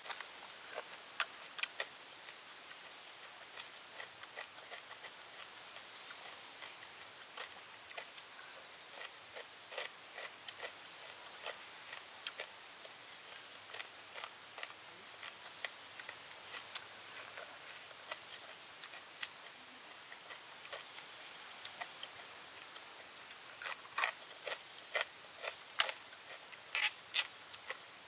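Close-up crunching and chewing of crispy deep-fried snake: irregular sharp crackles and clicks, coming thicker near the end.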